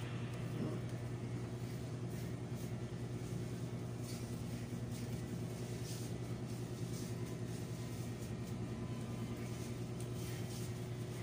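A steady electric motor hum with a faint buzz above it, constant in level, with a few soft brush swishes partway through as a barber's neck brush sweeps cut hair off a customer's face.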